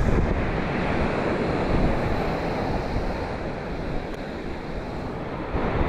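Surf breaking steadily on a sandy Gulf beach, with wind buffeting the microphone.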